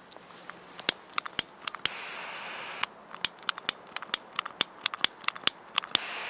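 Hand-held lighter clicked over and over, about twenty sharp clicks coming about four a second, with a short hiss of flame around two seconds in and again near the end, as it is tried against a firecracker's fuse.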